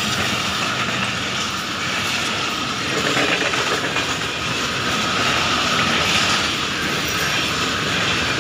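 Passenger train coaches passing close by at speed: a steady rushing rumble, with the wheels clicking over the rail joints.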